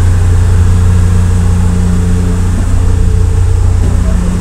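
Ship's engine running: a loud, steady low drone, heard inside the ship's passageway.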